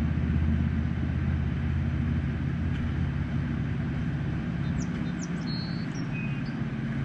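A steady low engine drone, easing off for a moment near the end, with a few short high bird chirps about five seconds in.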